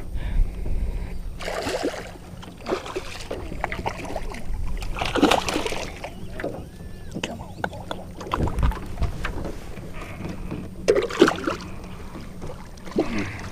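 Steady low hum on a fishing boat, with irregular knocks, rustles and splashy bursts from the fish and gear being handled.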